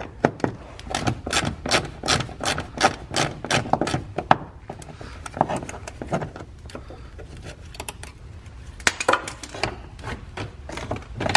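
Hand tools working metal fasteners: a ratchet wrench clicking and light metal clinks as the bolt and clips holding a clutch hydraulic line are undone. A quick, fairly even run of clicks fills the first four seconds, then scattered ones, with another short dense run about nine seconds in.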